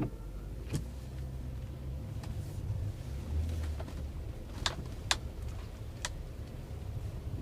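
Low steady road and engine rumble inside the cabin of a GMC Yukon SUV on the move, with a few sharp cracks: one about a second in and three more close together past the middle.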